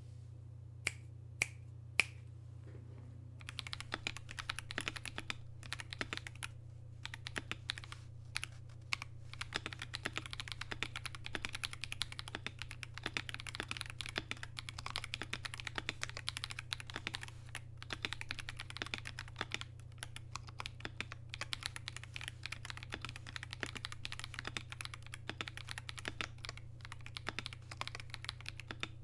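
Typing on a KBD67 Lite 65% mechanical keyboard with near-stock Akko CS Ocean Blue tactile switches, on a polycarbonate plate with a silicone dampener and foam. Three single keystrokes come in the first two seconds, then steady continuous typing from about three and a half seconds in.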